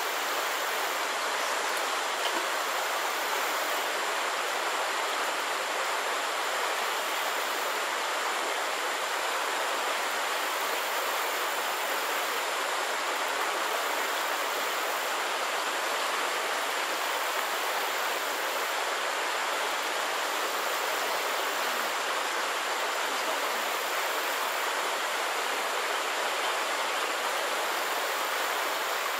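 Flowing stream water, a steady even rush with no distinct splashes.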